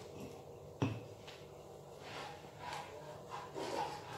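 Kitchen handling sounds: a sharp knock of something set down about a second in, then a few soft knocks and rustling as ingredients and utensils are moved about.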